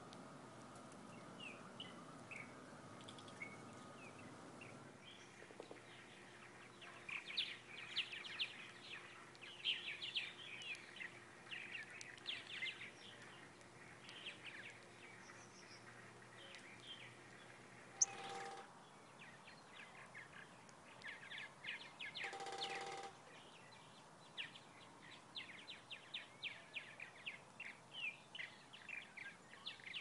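Small songbirds chirping, many quick short chirps in dense runs, busiest from about seven seconds in and again through the second half. Two brief louder sounds stand out, one about eighteen seconds in and one a few seconds later.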